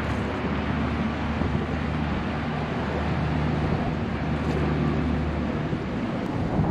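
Wind rushing over the microphone with a steady low engine hum from a nearby motor vehicle, which stops about five and a half seconds in.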